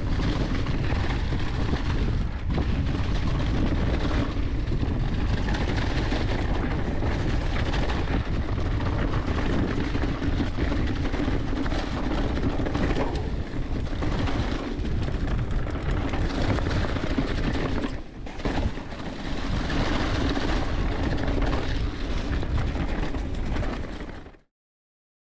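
Wind rushing over an action camera's microphone, mixed with a mountain bike's tyres rolling over a leaf-covered dirt trail at speed. The noise is steady and heavy in the low end, dips briefly about three-quarters of the way through, then fades out quickly near the end.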